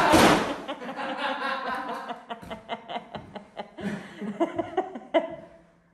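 Laughter: a run of short chuckles, loudest at first and fading over a few seconds.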